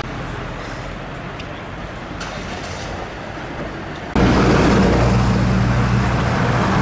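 Street traffic noise, then after a sudden cut about four seconds in, a louder steady low drone from a Scania P280 fire engine's diesel engine running close by.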